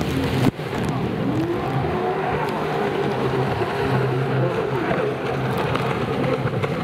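Racing jet ski engines running hard on the course, their pitch rising and falling as the craft turn around the buoys. The sound drops out briefly about half a second in.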